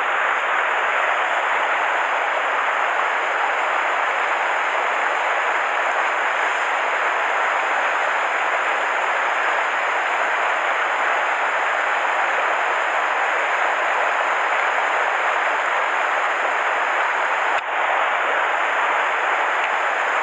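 Mountain stream rushing over rocks in a small riffle: a steady, even rush of water close by. One brief click near the end.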